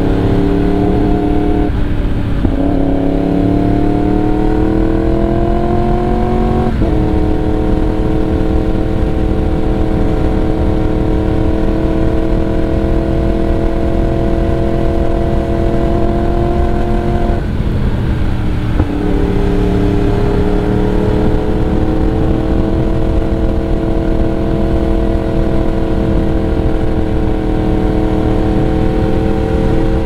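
Yamaha YZF-R1's crossplane inline-four through a Leo Vince exhaust, ridden on the road: the exhaust note climbs in pitch as the bike pulls, breaks off briefly about two seconds in and again around eighteen seconds in, and holds steady in between. The revs fall after the second break, in step with the change from third gear to fourth, then slowly rise again.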